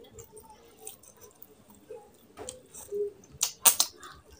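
Close-miked eating by hand: a mouthful of curry and rice being chewed, with scattered wet clicks and lip smacks, the loudest cluster of smacks a little before the end.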